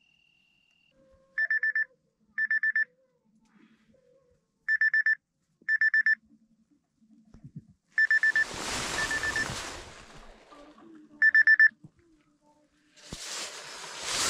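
Electronic alarm beeping in short bursts of four quick high beeps, sounding six times with uneven pauses, the pattern of a wake-up alarm. A rustling noise comes in about eight seconds in and again near the end.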